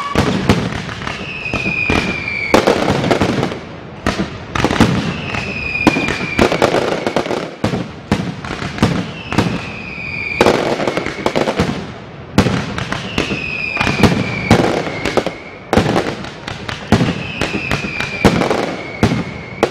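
Fireworks going off at close range: a rapid, irregular series of loud bangs and crackles, with a high whistle that falls slightly in pitch about every four seconds.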